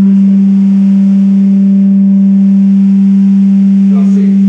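A loud, steady low electronic tone held at one unchanging pitch, coming through the rehearsal amplification, with faint voices near the end.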